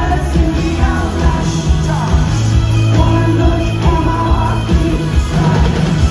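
Live rock band playing loud, with electric guitar, drums and keyboards and a voice singing over them, heard from out in the crowd.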